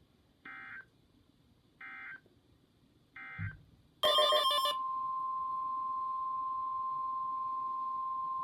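NOAA Weather Radio end-of-message data tones: three short warbling SAME bursts about 1.3 seconds apart, closing the flash flood warning. About four seconds in, a brief loud burst of data tones gives way to a steady, loud single tone near 1 kHz: the weather radio's warning alarm tone that heralds the next warning.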